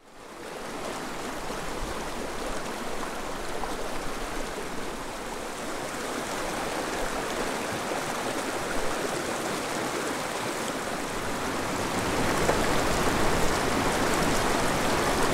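Rushing creek water tumbling over rocks, a steady rush that fades in at the start and grows louder about twelve seconds in.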